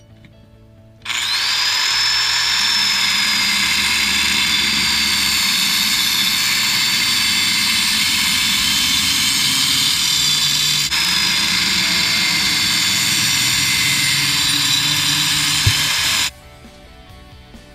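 Angle grinder with a cutoff wheel cutting through a black metal chain-link fence top rail. The high whine comes in about a second in and holds steady with one brief dip partway through. There is a short knock just before it cuts off near the end.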